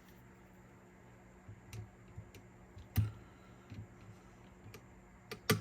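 Scattered small sharp clicks and taps of metal parts being fitted on a cassette deck's head carriage mechanism, as a spacer ring and retaining clips are put on; the loudest clicks come about three seconds in and a double click near the end.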